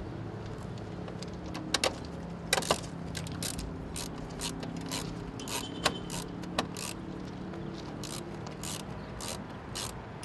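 Light, irregular metal clicks and ticks as a long-shaft nut driver turns a screw at the capacitor mounting strap inside an air-conditioner's electrical compartment. A faint steady low hum sits underneath.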